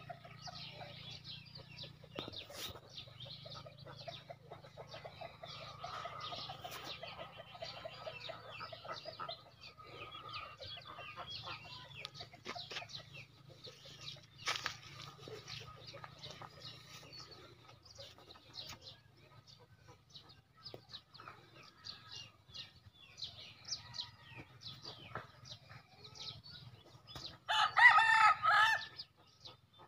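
Free-range chickens clucking softly, with a rooster crowing once, loud and about a second and a half long, near the end.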